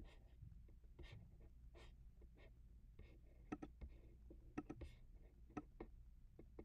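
Faint clicks of a computer mouse, several in quick pairs in the second half, over a low steady hum and a few soft brushing noises.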